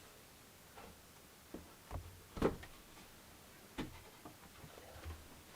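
A few light, separate wooden knocks and taps as a cut piece of wood is handled and pushed into place as a support under a wardrobe rail, the loudest about halfway through.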